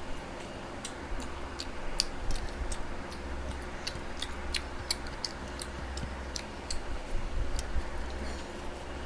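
Close-miked eating: irregular sharp clicks and smacks of chewing roti and curry, a few each second, over a low steady hum.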